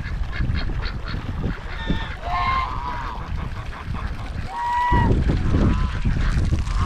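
Domestic geese honking several times, with wind buffeting the microphone as a low rumble that gets stronger about five seconds in.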